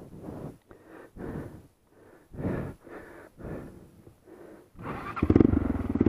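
A person breathing hard in soft gasps about once a second. From about five seconds in, a motorcycle engine comes in loudly, running with a steady pulse.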